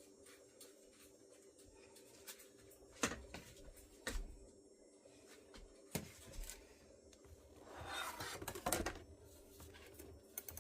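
Quesadilla-making handling sounds: a few light knocks and a brief scraping rustle about eight seconds in, over a steady low hum.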